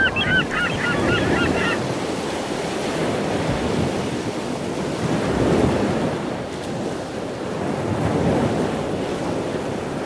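Wind gusting on the microphone over choppy open water, with waves washing, rising and falling in level. In the first two seconds a bird gives a rapid series of short high calls.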